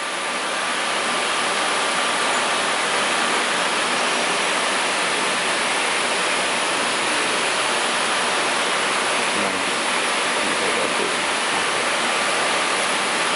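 Steady, even background hiss with no rhythm and no distinct events.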